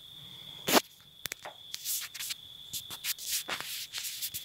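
Scattered light scuffs and clicks, with one louder scuff about three-quarters of a second in, over a faint steady high-pitched whine.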